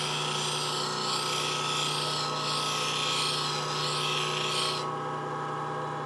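Bench grinder motor humming steadily while a steel spindle gouge is ground against the wheel, a rough hiss of grinding that stops about five seconds in and leaves the motor running. This is the heel behind the bevel being relieved on a fingernail-grind gouge.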